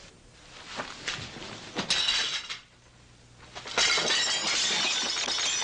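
Glass breaking and objects clattering as they are swept off a table: a short crash about two seconds in, then a longer, denser crash from a little past halfway that keeps going.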